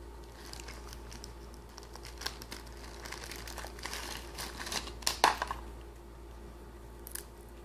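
Thin clear plastic bag crinkling and rustling as hands handle it to get out a USB cable, in small scattered crackles with a louder crinkle about five seconds in.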